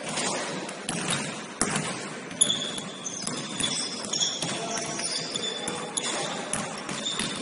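Basketball game in a gym: a ball bouncing on the hardwood court in sharp knocks, with short high squeaks of sneakers on the floor.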